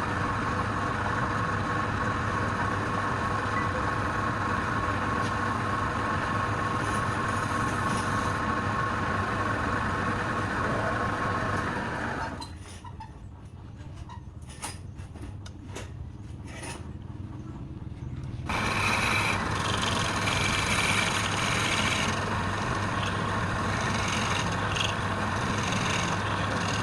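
Wood lathe's motor running steadily with a hum. About twelve seconds in it winds down, leaving a quieter stretch of a few clicks. About six seconds later it starts up again with a brighter, hissier sound.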